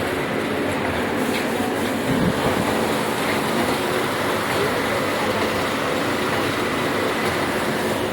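Steady, loud rumbling noise of a vehicle in motion, with a faint steady hum running through it.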